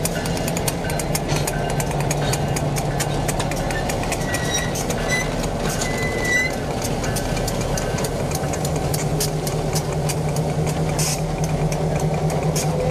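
Diesel locomotive running with a steady low engine drone as a freight train moves, with rapid clicking from the wheels and a few brief high squeals about halfway through.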